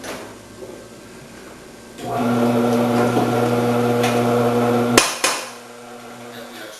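Omcan HLC 300 vegetable cutter's motor switched on about two seconds in, running with a steady hum for about three seconds, then cut off with a sharp click and a knock as it stops. Light handling knocks come before it starts.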